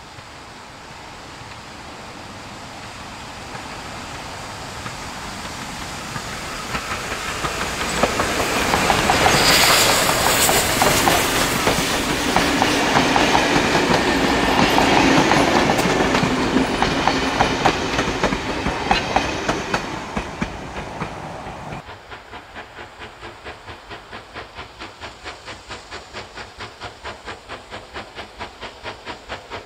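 Steam locomotive 3526, an NSW 35 class 4-6-0, approaches and passes close by, loudest about nine to ten seconds in. Its carriages follow, wheels clicking rapidly over the rail joints. Near the end it comes in fainter and farther off, with a fast, even beat as the locomotive approaches again.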